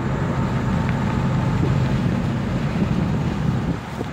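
Steady road and engine rumble of a moving car, heard from inside the cabin, easing a little near the end.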